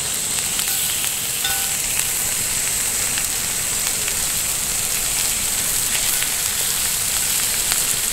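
Lamb chops sizzling on a 6 mm thick iron griddle plate over a wood fire: a steady frying hiss with scattered small pops.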